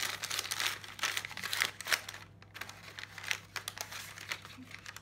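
Plastic wrapper of a Woolworths Bricks blind-bag pack crinkling and crackling as it is opened and the pieces pulled out, densest in the first two seconds and sparser after.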